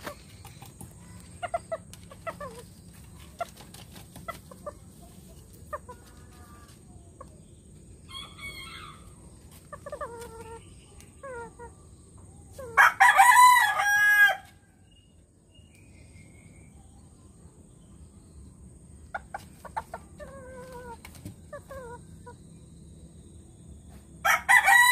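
Serama bantam rooster crowing: one loud crow lasting about a second and a half midway, with soft clucking scattered before and after it, and a second crow starting just at the very end.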